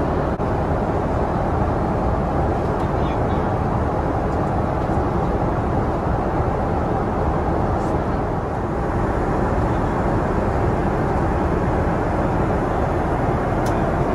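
Steady rush of in-flight cabin noise aboard a Boeing 777-300ER: engine and airflow noise, even and unchanging.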